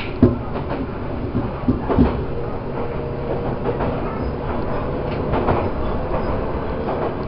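Electric train running on the rail, heard from inside the driver's cab: a steady rumble of wheels on track, with a few short clacks near the start and about two seconds in.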